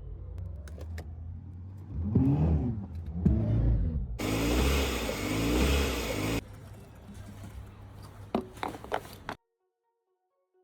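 Range Rover Sport TDV6 diesel engine running, revved up and down twice, then held at a louder sustained pitch before dropping back. A few sharp knocks come near the end before the sound cuts off suddenly. The engine suffers from idle vibration and loud thudding, blamed on a failed engine mount.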